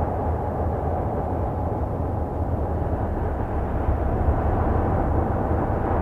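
Voyager 2's Uranus radio and plasma-wave data turned into sound: a steady, deep, rushing rumble with little high end and a faint hollow tone in the middle, swelling slightly about four seconds in.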